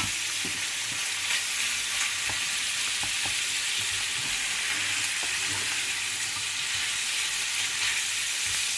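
Squid pieces frying in a pan with onion, a steady sizzle as the squid gives off its water, with a few faint clicks.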